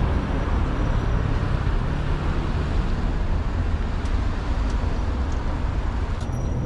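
Steady road noise of a motor vehicle: a low rumble with a hiss over it, holding even throughout.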